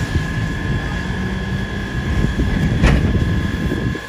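Steady low engine rumble with a high, steady whine running over it, and a single sharp crack about three seconds in.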